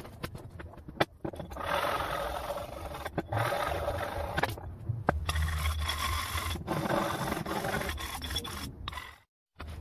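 A hand tool scraping across a workpiece in several long, rough strokes of about a second each, with sharp knocks between them. The sound cuts off abruptly near the end.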